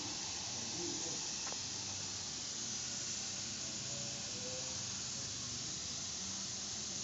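Steady hissing whir of a cigarette packing machine running at speed, with one faint tick about a second and a half in.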